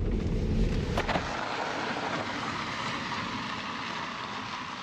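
Car cabin road and engine rumble for about the first second, then a cut to a steady outdoor hiss that slowly fades.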